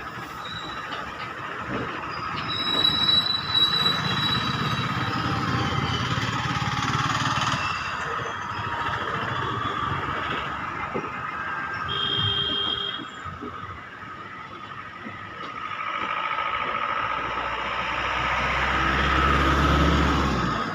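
Indian train running on the track, with brief high squeals a few seconds in and again near the middle, and a deep rumble building over the last few seconds.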